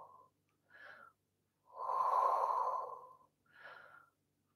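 A woman breathing audibly while holding a stretch: a short inhale about a second in, a long exhale of about a second and a half, then another short inhale near the end.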